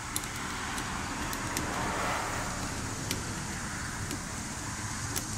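A steady low background rumble, with about half a dozen faint, sharp clicks as small metal carburetor parts are handled and the cap screws are worked loose.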